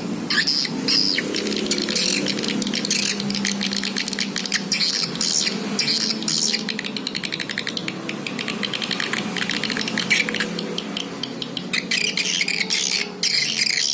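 Recorded swiftlet calls, a walet lure sound: trains of rapid, twittering chirps that come and go every second or so, over a steady lower layer of sound.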